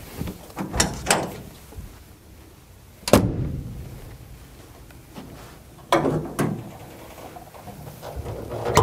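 Clicks and clunks of the hood of a 1961 Mercedes-Benz 190SL being unlatched and raised. A few light clicks come first, then one sharp clunk about three seconds in, the loudest, and a pair of knocks about six seconds in.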